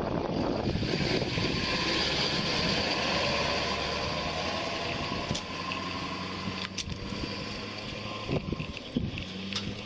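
A vehicle engine running steadily, with a few short clicks and knocks; the sound eases a little about halfway through.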